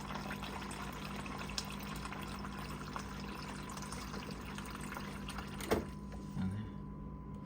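Refrigerator door water dispenser running a fast stream into a cup, flushing a freshly fitted filter; the strong flow shows the clogged old filter has been replaced. The flow stops with a click about six seconds in.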